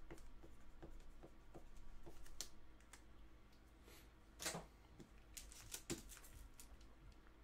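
Faint, light ticking and scratching of a marker writing on a plastic card holder, then a few sharper clicks and crinkles of plastic as a sleeved graded card slab is handled, around four and a half and six seconds in.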